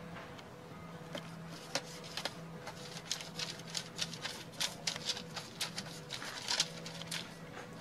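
Silicone pastry brush spreading oil over a ridged disposable aluminium-foil grill tray: a run of irregular, light crackles and scrapes of the thin foil, starting about a second in.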